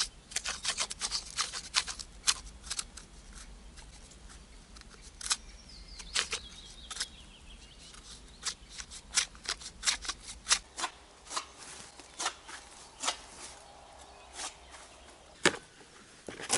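Knife scoring birch bark and the bark sheet being pried and peeled away from the trunk: a run of irregular sharp cracks and crackles.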